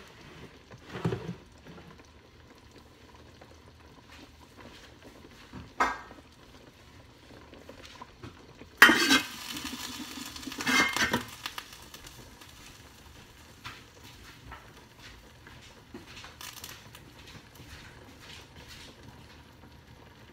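Kitchen handling sounds at a stovetop pot: a few short knocks, and a louder stretch of clattering and rustling about nine to eleven seconds in.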